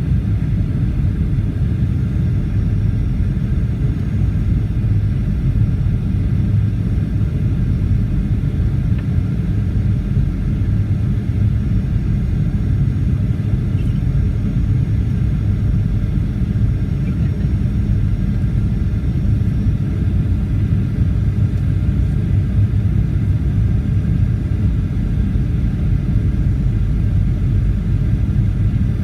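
Steady roar inside the cabin of a Boeing 737-800 in flight, with airflow and engine noise deep and even throughout and a few faint steady tones above it.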